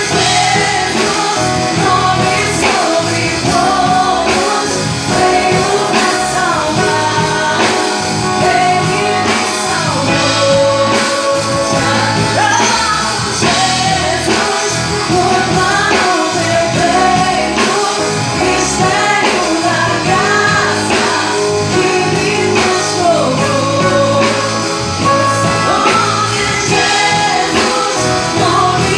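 A woman singing a gospel song with a band of guitar and drums.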